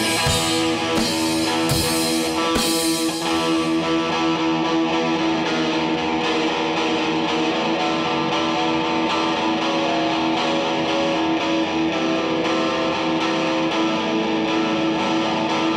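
Instrumental break of a rock song: drums and cymbal crashes for the first three seconds or so, then the drums drop out and a Rickenbacker electric guitar carries on alone, strummed with sustained, ringing chords.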